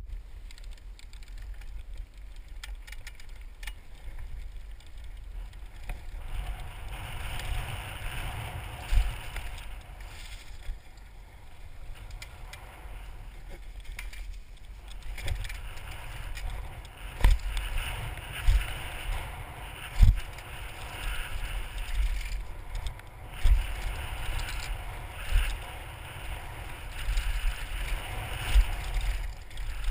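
Helmet-camera sound of a mountain bike riding a dirt singletrack: wind rumbling on the microphone and knobby tyres rolling over dirt and dry leaves. It is broken by several sharp thumps and rattles as the bike hits bumps, the loudest about halfway through.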